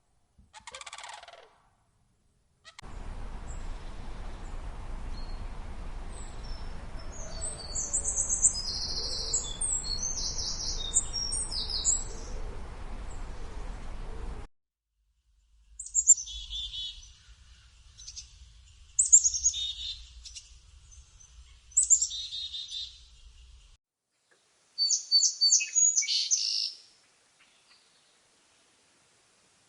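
Wild birds calling and singing in a string of separate recordings: a lower call in the first second, then high chirps over steady background noise, then high song phrases repeated about every three seconds, then a quick run of high notes that stops a few seconds before the end.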